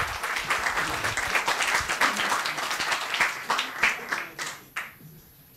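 Audience applauding, a dense patter of clapping that thins out and dies away about five seconds in.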